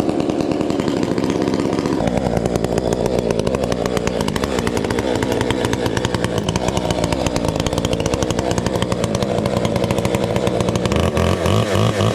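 Two-stroke chainsaw running at speed throughout. Its note shifts about two seconds in and again near the end.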